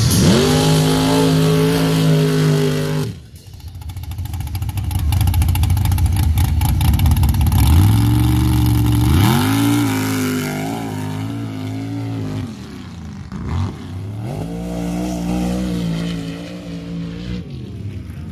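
Mud-race buggy engine revving hard and running at high revs under full throttle, its pitch climbing and holding in three surges. The sound breaks off suddenly about three seconds in and dips briefly near 13 seconds.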